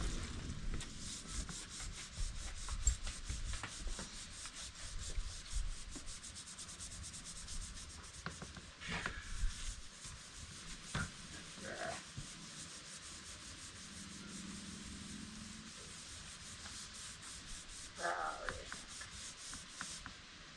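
Sandpaper rubbing over a truck's body panels in quick, repeated scratchy strokes, heavier for the first half and lighter after. This is final sanding of the bodywork before paint. A few brief squeaks come in between.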